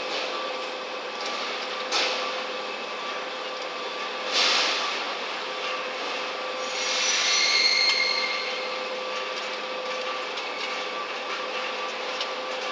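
Steady machinery drone with a constant hum, broken by a couple of sharp knocks and a brief high-pitched squeal about halfway through.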